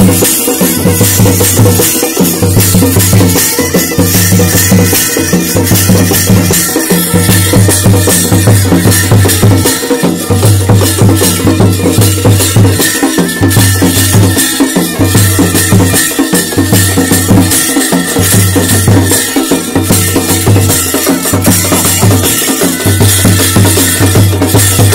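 Live Chholiya folk dance music: dhol and damau drums beating a steady rhythm under steady held piped tones.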